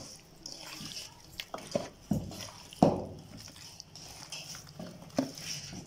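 Raw carp pieces being worked by hand in a thick spice paste in a steel bowl: wet squelching with irregular knocks of fish against the metal. The sharpest knock comes about three seconds in.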